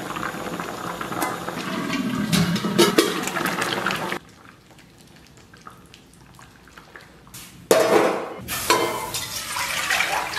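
Red-braised pork belly bubbling in a pot, with chopsticks clicking against a steel bowl as the whole spices are picked out. After a quiet few seconds, water is poured from a steel bowl into a wok, splashing loudly.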